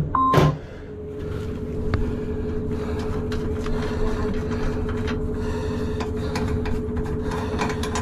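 Steady mechanical hum with a low rumble and a held tone, with scattered light clicks and handling knocks. A sharp knock and a short beep come right at the start.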